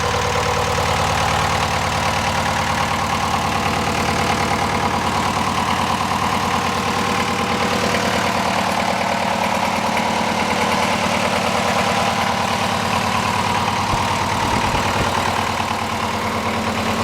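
Onan MEP-003A military generator's two-cylinder diesel engine idling steadily after being throttled down.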